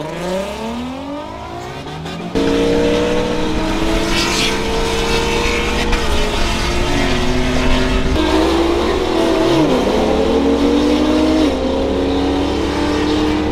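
Car engine at full throttle, its revs climbing quickly, heard from inside the cabin. About two seconds in it gives way to a louder, steady run of held tones that step up and down in pitch every second or two.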